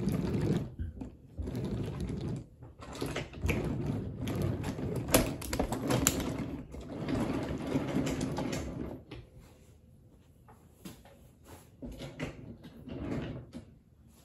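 Wooden toy train cars rolling along wooden track, a steady rattling rumble with sharp clacks as the wheels cross the track joints; it dies away about nine seconds in as the train passes.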